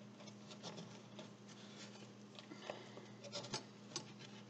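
Metal spoon scraping and clicking inside a young coconut, prying the firm meat away from the shell in short, faint strokes, with a few louder scrapes near the end.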